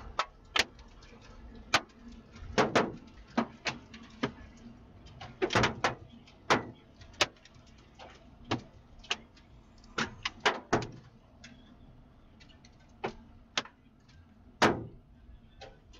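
Scattered hailstones striking the vehicle's windshield and roof, heard from inside the cabin: irregular sharp knocks, a couple a second, some much louder than others.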